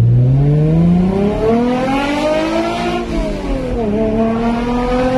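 Swapped-in Toyota 2GR-FE 3.5-litre V6 in an MR2 SW20, breathing through Frankenstein Motorworks headers, a Wilhelm Y-pipe and a Berk Technology exhaust, heard from inside the cabin as the car accelerates. The engine pitch climbs for about three seconds, drops suddenly, dips again just before four seconds, then holds steady.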